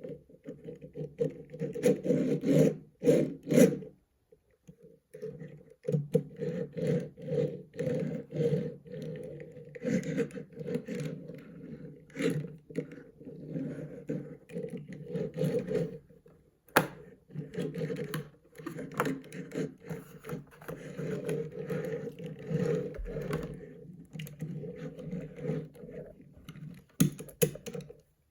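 Irregular scraping and rustling of objects being handled, in dense runs with short pauses and a few sharp clicks.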